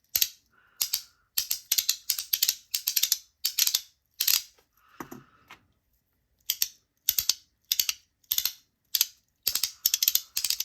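Magnetic haptic coin fidget (One Bean chicken dinner coin) being slid back and forth, snapping between its magnet positions: sharp, loud clicks in quick pairs and runs, with a brief pause near the middle. A soft sliding sound comes between snaps twice.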